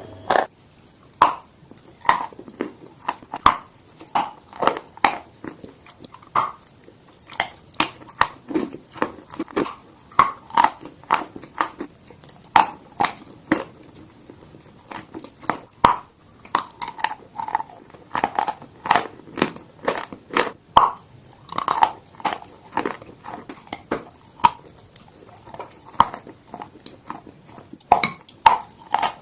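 Chalk crunching: a long, irregular run of short, sharp crunches, about one or two a second, as pieces of chalk mixed with paste are broken up.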